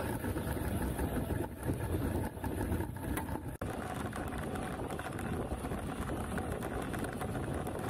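Brushless-motor radio-controlled truck driving fast over rough forest ground, heard from a camera mounted on it: a steady rumbling rattle of wheels, chassis and motor. The sound breaks off for an instant about three and a half seconds in.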